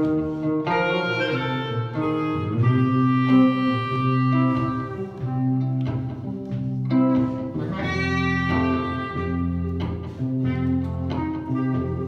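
Clarinet and electric guitar playing together live: the clarinet plays a slow melody of long held notes over electric guitar accompaniment.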